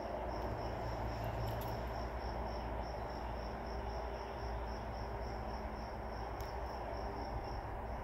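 A cricket chirping steadily, about four chirps a second, over a steady low hum.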